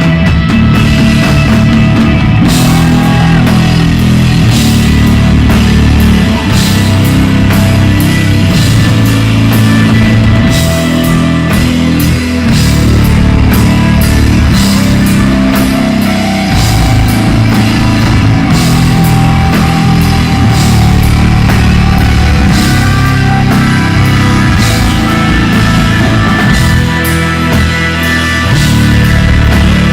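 Live instrumental desert rock band playing a psychedelic jam: electric guitar over a heavy, shifting bass line, with drums and steady cymbal hits. The sound is loud and continuous, with no singing.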